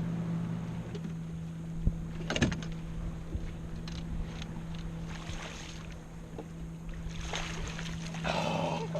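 Boat motor humming steadily at trolling speed. A couple of sharp knocks come about two seconds in, and a few brief rushes of noise follow later on.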